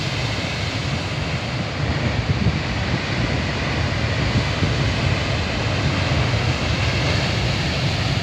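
Rough surf breaking and washing over a rocky boulder shore, a steady rushing roar of foaming water, with wind buffeting the microphone in a low rumble.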